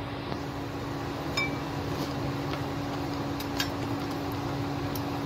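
Cashew pieces being roasted and stirred with a spatula in a metal kadhai, giving a few light clicks and scrapes against the pan over a steady hum.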